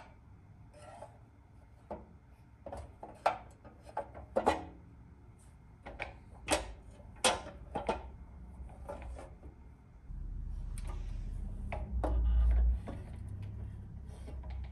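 Sharp clicks and clacks of the pressed-steel Tonka garbage truck's lever and body parts being worked by hand. About ten seconds in a steady low rumble sets in, loudest a little later, as the truck body is tipped up and handled on the bench.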